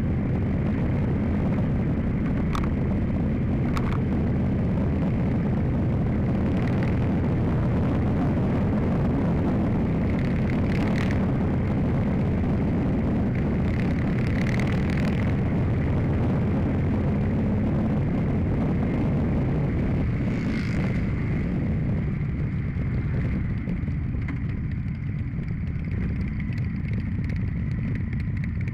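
Motorcycle engine running steadily, heard on board while riding with other motorcycles close by. It eases off and gets quieter over the last several seconds as the bike slows.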